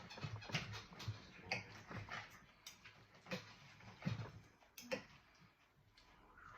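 Eating sounds: a run of irregular light clicks and taps, roughly one every half second to second, the loudest about four seconds in.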